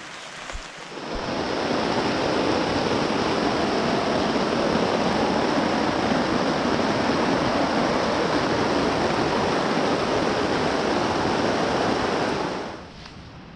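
Loud, steady rush of water that comes in about a second in and cuts off sharply near the end.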